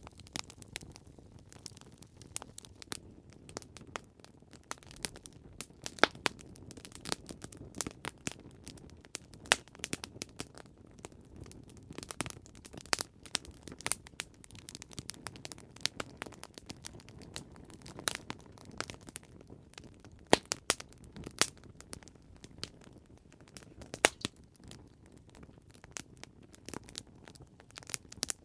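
Campfire crackling: wood burning with irregular sharp pops and snaps over a low steady hiss.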